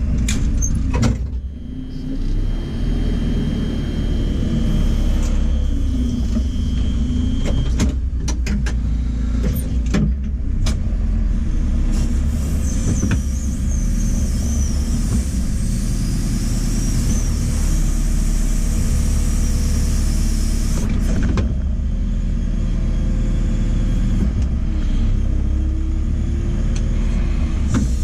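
JCB 4CX backhoe loader's diesel engine running with a steady deep rumble, its pitch rising and falling now and then. A few short knocks come through.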